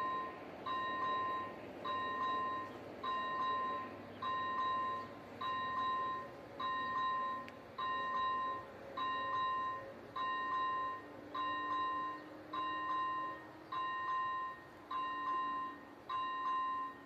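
Level-crossing warning bell ringing a steady, evenly repeated electronic ding, a little under two strokes a second, as the crossing signals an approaching train.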